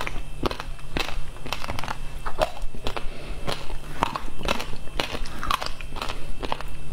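Frozen passion fruit pulp with seeds being bitten and chewed, close to the microphone: an uneven run of sharp icy crunches and crackles, several a second.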